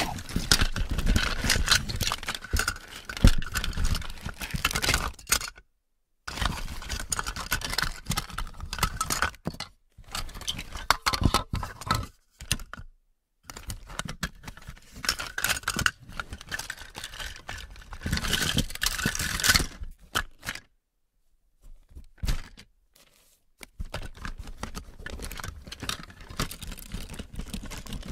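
Plastic toys rattling and clattering against each other as a box full of them is shaken and rummaged through, in bursts of a few seconds with short silent breaks between them.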